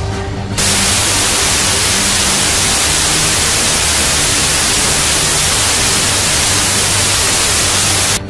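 Loud television static hiss, the white-noise sound of an untuned analogue TV, starting abruptly about half a second in and cutting off suddenly near the end.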